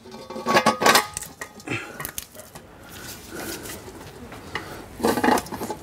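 Metal clinks and clanks of the Porsche 911 GT3 RS's factory exhaust headers and hand tools knocking together as the headers are fitted back under the car. There is a cluster of them about half a second in, more around two seconds, and another near the end.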